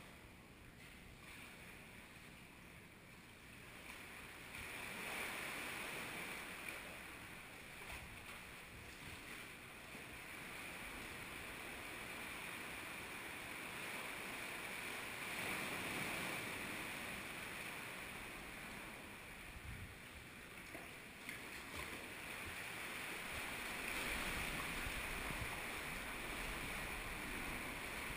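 Seawater washing and sloshing in a sea cave around a kayak, a steady hiss that swells and eases in slow surges.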